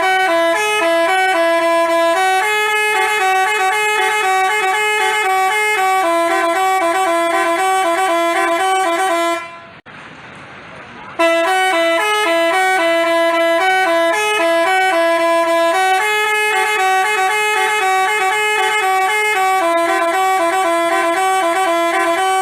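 Basuri telolet bus horn playing its multi-tone melody, note steps held and changed in a tune. It plays the same phrase twice, with a short break of faint hiss about halfway through.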